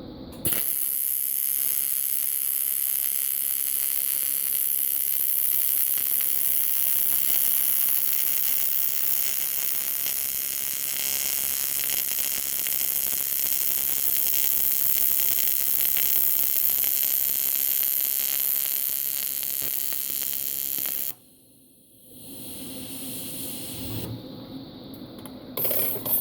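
TIG welding arc on aluminium, run on AC: a steady buzzing hiss that starts about half a second in and cuts off sharply about 21 seconds in. A quieter steady sound follows.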